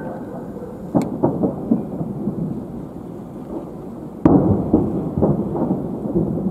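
Distant fireworks salute shells bursting with deep, thunder-like booms. A sharp bang comes about a second in and a louder one a little past four seconds, each followed by several smaller bangs.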